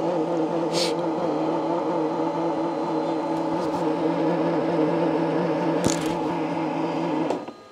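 Motor of a Creality K2 Plus printer and CFS filament box whirring at one steady pitch while it changes and feeds filament to the extruder, with a couple of light clicks, then stopping abruptly near the end.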